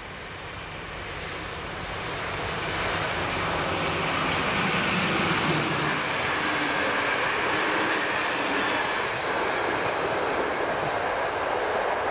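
Passenger train of intercity coaches running past on the rails. Its wheel and rail noise grows louder over the first three seconds, then holds steady and loud.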